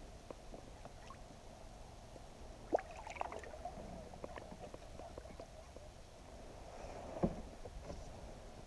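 Faint water sounds with a few small splashes and light knocks, about three seconds in and again near the end, as a hooked bream thrashes at the surface beside a kayak.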